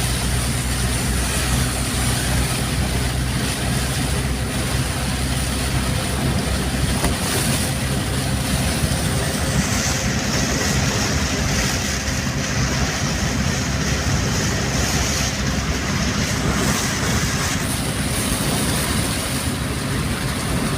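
Heavy rain and strong wind in a steady wash of noise, over a continuous low vehicle drone.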